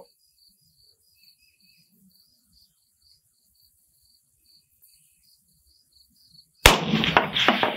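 Faint, evenly repeating cricket chirps, then near the end a single loud shot from a Galil DMR rifle in 6.5 Creedmoor, its report rolling on as an echo.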